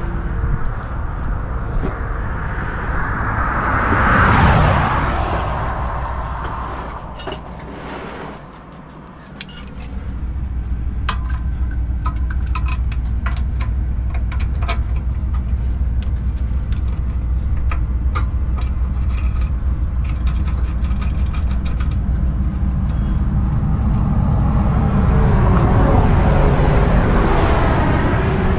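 Highway traffic going past close by, one vehicle swelling and fading about four seconds in and another building near the end. Between them, over a steady low engine rumble, comes a string of sharp metal clicks and clinks from a hand tool working on the truck's underside.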